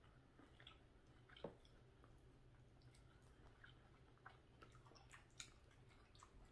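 Near silence: faint scattered clicks and soft eating sounds, a plastic fork on a plate and chewing, over a low steady hum.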